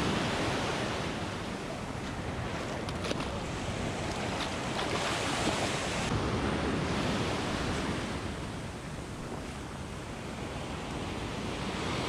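Ocean surf breaking and washing up the beach, swelling and ebbing, with some wind on the microphone.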